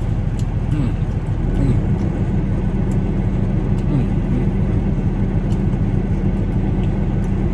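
A parked semi-truck's engine idling, a steady low hum, heard inside the cab. Faint clicks of eating come over it here and there.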